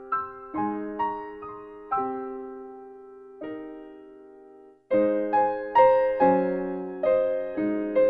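Background music: solo piano playing slow, gentle notes that each ring and fade. It cuts out for a moment just before five seconds in, then resumes louder with more notes.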